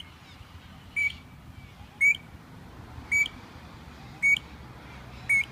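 A bird repeating a short, high, piping call about once a second, six times.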